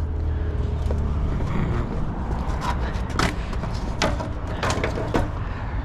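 About six short clicks and knocks of hard plastic as a cooling fan assembly is handled and worked into its mounting clips against the radiator, over a steady low hum.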